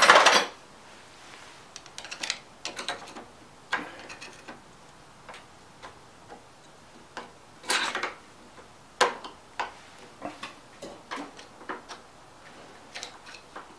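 Scattered metal clicks and scraping taps of a screwdriver working at a tight C-clip on the drive-gear shaft of a lawn mower's self-propel transmission, with a couple of sharper clicks past the middle.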